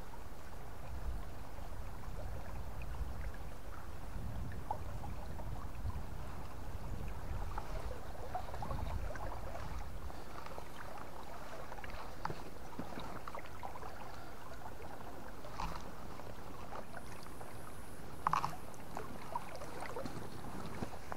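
River water flowing steadily, with low rumbling through roughly the first half and scattered small ticks; a short, louder sound stands out about eighteen seconds in.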